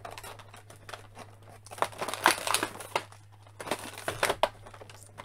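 Clear plastic packaging crinkling and crackling as an action figure is worked out of its tray, in irregular bursts that are loudest about two seconds in and again near four seconds.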